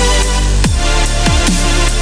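Loud electronic dance music with a heavy, steady bass and a fast beat of punchy drum hits that drop in pitch.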